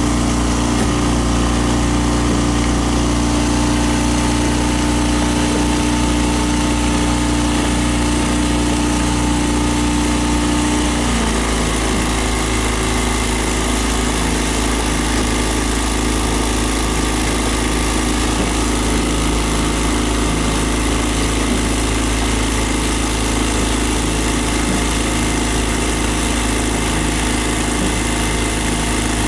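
Motorboat engine running steadily at low speed; its pitch drops a little about eleven seconds in.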